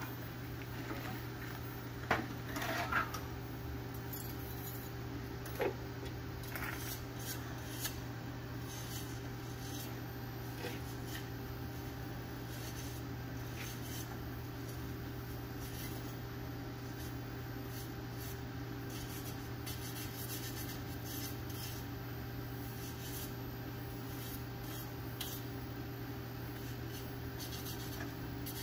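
TIG welding on an aluminum exhaust pipe: a steady low hum with a few sharp metallic clinks and taps, the loudest about two, three and six seconds in.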